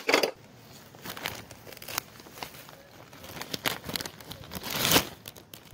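Clear plastic zip-top bag crinkling as it is handled, in irregular crackles that are loudest about five seconds in.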